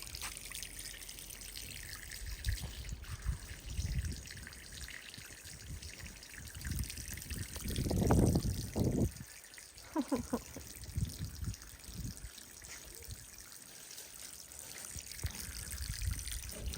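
Water trickling steadily through the gaps between cobblestones. A brief low rumble rises a little under halfway, followed by a few short pitched sounds.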